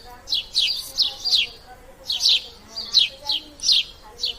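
Sparrow chirping: a quick, uneven series of about ten short chirps, each sliding down in pitch.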